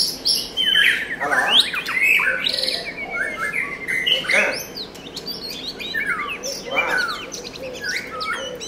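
White-rumped shama singing a varied song of clear whistled notes that slide quickly up and down, broken by a few harsher, rasping notes.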